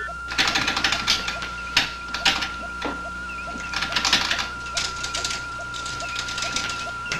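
Sci-fi computer console sound effect: a steady high electronic tone under irregular bursts of clicking and chattering, with small repeated chirps.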